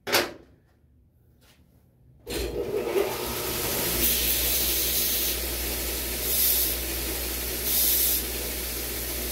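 A sharp click, then a bench grinder starts up and runs steadily with a low hum and a hissing grind. It grows louder three times in the second half as a steel bolt head is pressed against the wheel to round it off.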